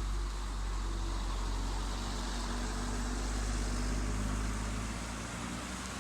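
Heavy bus engine and road noise: a steady low rumble with hiss above it, coming in suddenly louder at the start.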